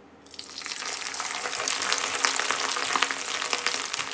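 Dried squid pieces going into hot oil in a wok. The oil bursts into sizzling and crackling about a quarter second in, building within a second to a steady, dense frying hiss full of small pops.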